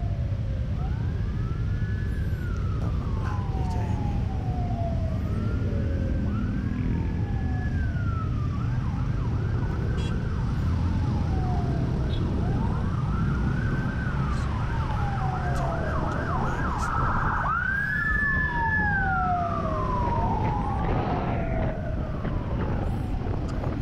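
Emergency-vehicle siren wailing in slow rising-and-falling sweeps, switching to a quicker yelp for a few seconds twice in the middle. Underneath is steady low wind and road noise from a moving scooter.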